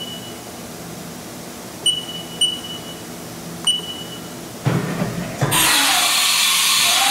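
Haas VF-0E CNC mill's control beeping briefly four times as keys are pressed, then the automatic tool changer at work for a tool change: a few mechanical clunks as the tool carousel moves in, followed by a loud steady hiss for about two seconds, typical of the spindle releasing its tool with a blast of air.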